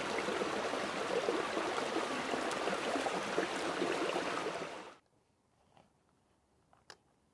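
Steady rush of running water, which cuts off abruptly about five seconds in. After that, near silence with a faint click or two.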